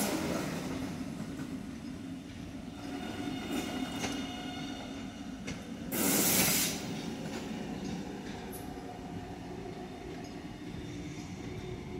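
New Alstom electric passenger train rolling slowly over yard track: a steady low drone of motors and wheels, with a faint high whine about three to five seconds in. About six seconds in comes a short, loud hiss, the loudest moment.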